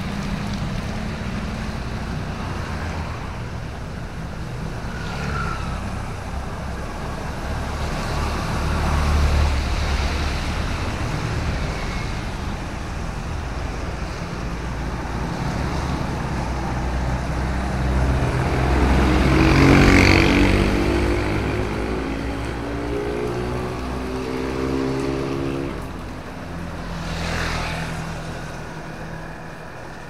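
Road traffic passing on wet asphalt: cars and motorbikes going by, with tyre hiss over a low engine rumble. One vehicle passes close and loudest about two-thirds of the way in, and another near the end.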